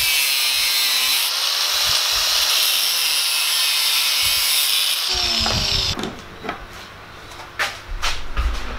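Angle grinder with an abrasive cut-off disc cutting into a block of mild steel, a steady harsh hiss of the cut. After about five seconds the disc comes out of the cut and the motor winds down with a falling whine, followed by a few light knocks.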